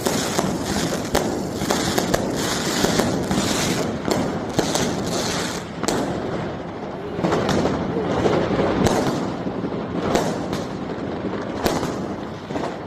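Many fireworks and firecrackers going off at once: a dense, continuous crackle of bangs with sharper single cracks standing out every second or so.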